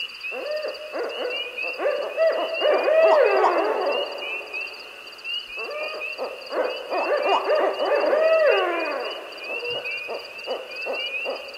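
Owls hooting in two long bouts of calls, each ending in a falling note, with a few quieter hoots near the end. Insects chirp steadily and high-pitched underneath.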